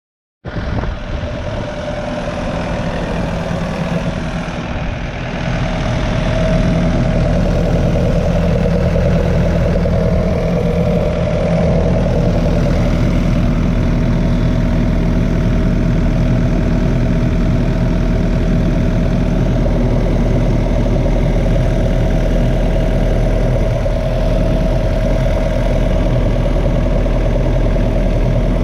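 Yanmar SV100-2A mini excavator's diesel engine running steadily. It cuts in suddenly, grows a little louder about five to seven seconds in, then holds an even note.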